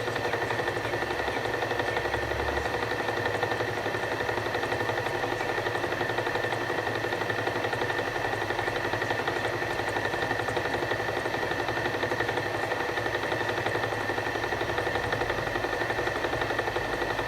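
Enshu VF2 milling machine running at a steady speed, a constant mechanical whine with a high tone and a lower one over a noisy hum.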